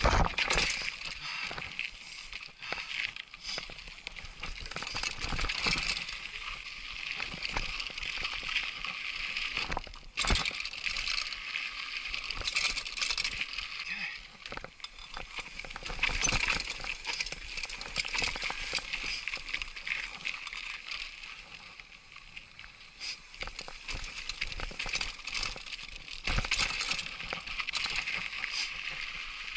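Trek Superfly mountain bike riding down a rough, rocky dirt trail: tyres crunching over loose grit and rock, with the bike clattering and rattling and frequent sharp knocks as it hits bumps.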